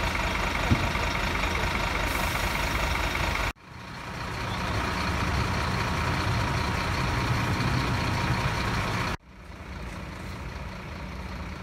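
Fire engines idling at a roadside, a steady rumble with a faint hum and one short click under a second in. The sound cuts off abruptly twice and is quieter in the last few seconds.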